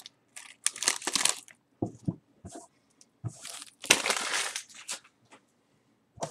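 Foil wrapper of a 2015 Topps Strata football card pack being torn open and crumpled by hand: irregular crinkling bursts, the loudest about three and a half to five seconds in, with a few light knocks and a click near the end as cards are handled.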